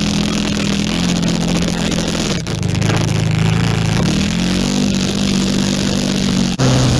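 ATV engine running under way, heard from the seat. Its pitch climbs, drops sharply about two and a half seconds in as if shifting gear, then climbs again.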